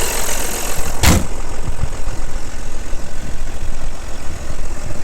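Audi allroad engine idling with a steady low rumble, the engine noise its owner finds excessive. A single thump about a second in, after which the high-pitched hiss drops away.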